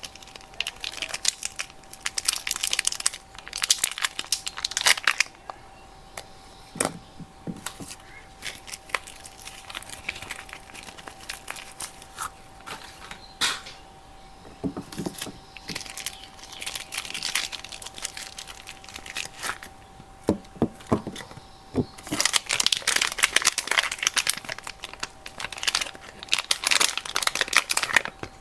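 Soap wrappers being unwrapped by hand: irregular crinkling, rustling and tearing of the packaging, coming in bursts with quieter gaps and a few sharp clicks and snaps.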